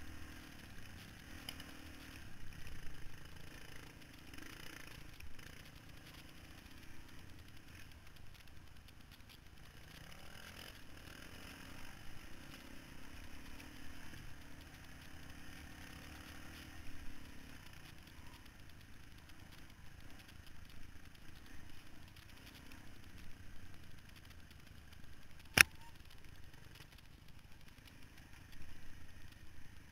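Four-stroke single-cylinder dirt bike engine running along a trail, its pitch and level rising and falling a little with the throttle. One sharp click or knock sounds near the end.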